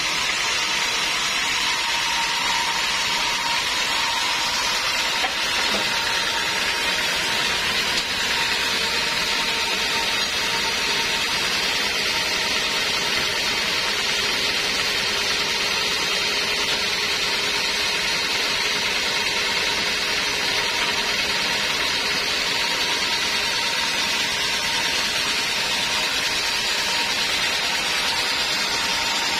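Log band sawmill running steadily, its blade sawing through a teak log: an even, high hiss with a steady hum-like tone, holding the same level throughout.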